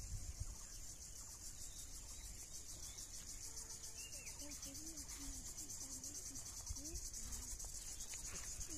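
Insects chirring steadily in a high, fast-pulsing buzz.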